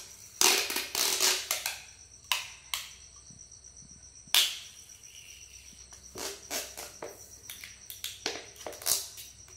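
Thin plastic bag crinkling and rustling in irregular bursts as a jar is wrapped in it and tied off with a rubber band. A steady high cricket trill runs underneath.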